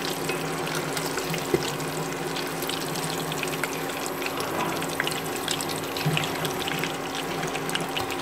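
Flour-coated chicken pieces deep-frying in hot oil in a small stainless steel pot: dense, steady sizzling and crackling, over a steady low hum. A single sharp knock about a second and a half in.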